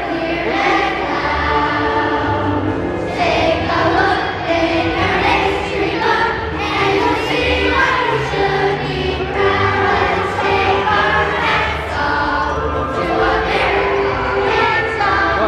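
A children's choir singing together, a celebration medley.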